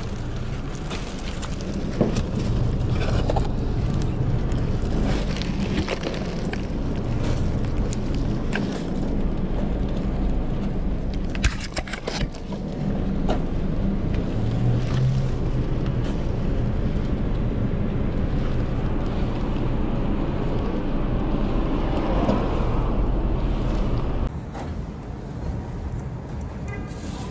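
Steady low rumble of outdoor street noise with scattered clicks and crackles; the rumble drops to a quieter hum near the end.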